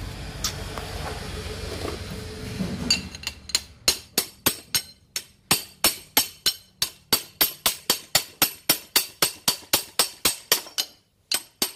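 A low steady hum with hiss, then from about three seconds in a regular run of sharp metallic clinks, metal on metal, about three or four a second, with a short pause near the end.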